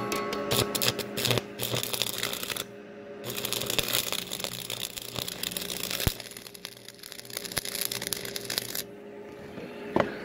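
Stick-welding arc crackling and sputtering as the electrode burns against steel, breaking off briefly about two and a half seconds in and again near the end, then restarting. A steady hum runs underneath.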